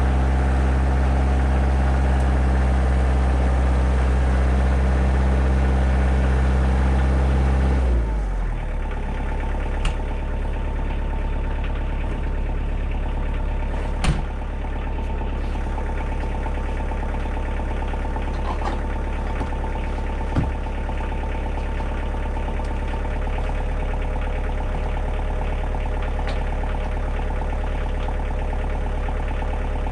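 Kioti DK40se compact tractor's diesel engine running at raised throttle, then dropping to a lower, steadier idle about eight seconds in. A few short knocks are heard over it, the loudest about fourteen seconds in.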